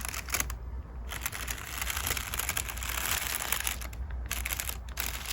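Crinkle paper crackling steadily as a makeup brush sweeps across it, with a brief pause just before a second in and short breaks near the end.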